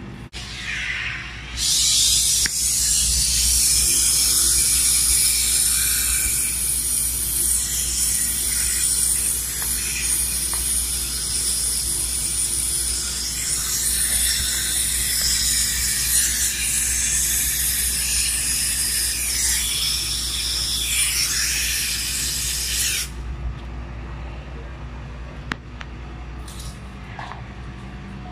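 Compressed nitrogen hissing steadily for about twenty seconds, used to pressure-test a cold room's indoor unit and refrigerant pipework. It starts suddenly a little after the start and cuts off suddenly a few seconds before the end.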